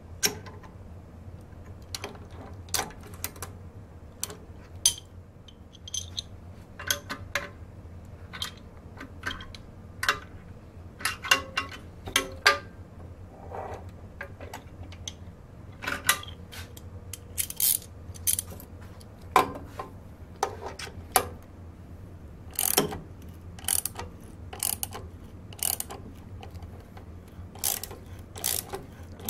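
Irregular metal clicks and clinks as a drill-press chuck and a steel part in the vise are handled by hand, some in quick clusters. A steady low hum runs underneath.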